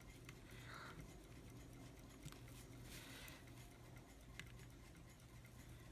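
Near silence with a few faint clicks and two brief light scrapes of a small screwdriver working on a pocket watch movement's plate screws.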